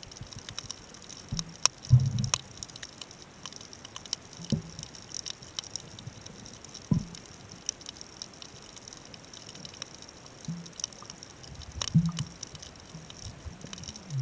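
Underwater ambience on a coral reef at night: scattered sharp clicks and crackles, with a few low thuds spread through.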